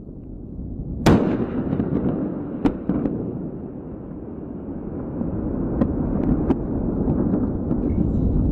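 Rocket explosion: a low rumble with one sharp blast about a second in, then scattered cracks and pops over the continuing rumble.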